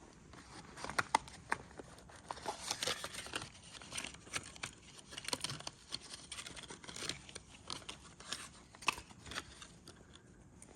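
Crinkling, tearing and rustling of packaging with small irregular clicks, as a new replacement thermostat is unwrapped and handled.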